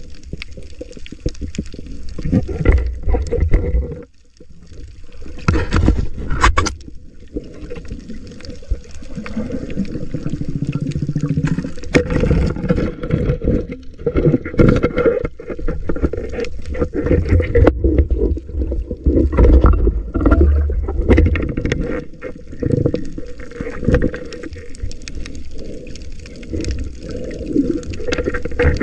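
Muffled underwater water noise heard through a submerged camera: a steady low rumble with gurgling and many small clicks, knocks and scrapes as the swimmer moves, dropping briefly about four seconds in.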